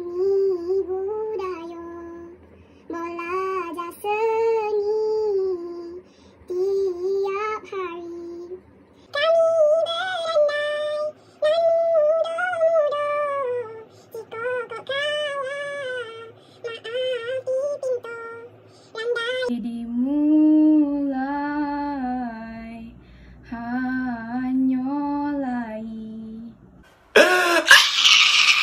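Unaccompanied singing voices heard over a video call through laptop speakers, one sung phrase after another; the voice moves higher about 9 seconds in and drops lower about 19 seconds in. Near the end a man's loud scream cuts in.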